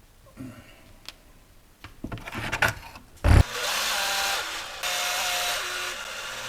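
A few light clicks and a knock while parts are handled. Then a cordless screwdriver runs in two spells, driving screws into the plastic chassis parts.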